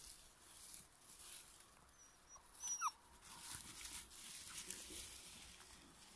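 Beauceron puppy giving one brief, high-pitched whimper near the middle of a quiet stretch.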